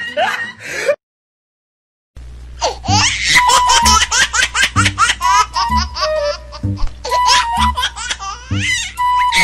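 A recorded laughter sound effect, with high, child-like giggling, over background music with a steady beat. The audio cuts out completely for about a second, then the laughter and music come back.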